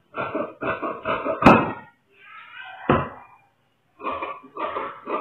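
Tailor's shears cutting through cotton fabric: a quick series of snips, about three a second, with a sharp clack of the blades about a second and a half in. The snipping pauses briefly a little before four seconds in, then starts again.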